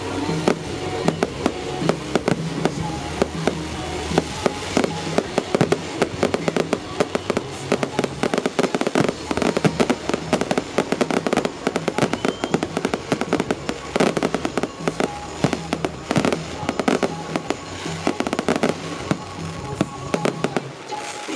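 Aerial fireworks display: a dense, nonstop barrage of shell bursts and crackling, with the show's music playing underneath.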